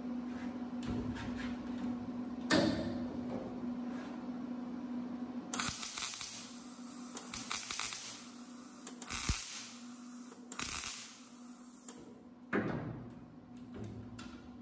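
MIG welder laying short tack welds on a thin sheet-metal patch panel in a truck bed: about five brief crackling bursts starting about five and a half seconds in, each a second or less and a second or two apart, over a steady hum. The welds are spaced apart so the sheet metal doesn't warp. A single sharp click comes a couple of seconds in.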